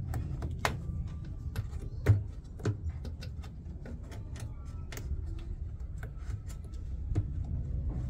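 Hands handling an LG front-loading washing machine's rubber door seal and drum: scattered clicks and light knocks, the loudest about two seconds in, over a steady low background rumble.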